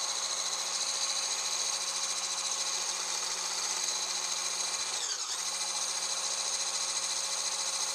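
Handheld 1200 W electric immersion blender running with its milk-frother whisk attachment in a glass of fat-free milk, frothing it. The motor gives a steady high whine that briefly dips in pitch and recovers about five seconds in.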